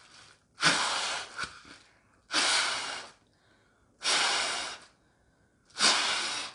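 Breath pushed into a plastic bag held over the mouth: four airy puffs, each about a second long and evenly spaced about a second and a half apart.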